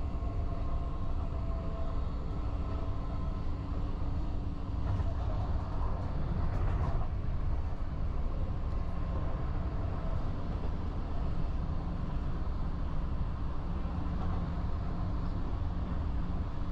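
Passenger train running along the track, heard as a steady, even running noise from inside the carriage.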